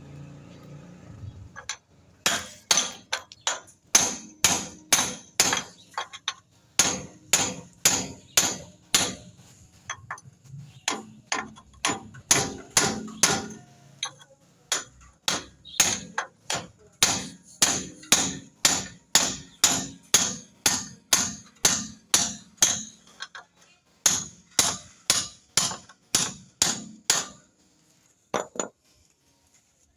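Steady hammer blows on metal while changing a car's front wheel bearing, about two sharp strikes a second with a brief pause near the end, working the bearing or its race by hammer instead of heating it with a torch.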